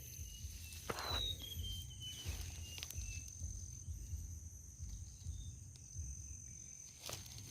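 Quiet outdoor ambience: a steady high insect drone over a low rumble, with a few faint clicks and short chirps.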